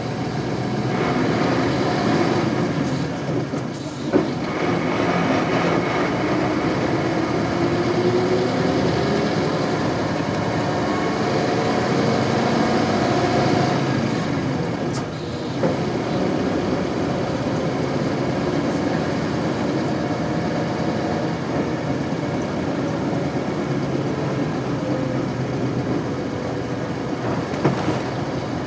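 Isuzu Cubic KC-LV380L bus's 8PE1 V8 diesel engine running under way, its pitch rising steadily as the bus gathers speed, with brief breaks in the engine sound about 4 and 15 seconds in.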